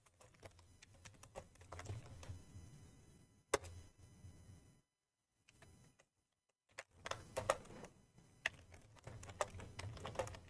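Faint typing on a computer keyboard in two runs of keystrokes, with a pause of about two seconds between them.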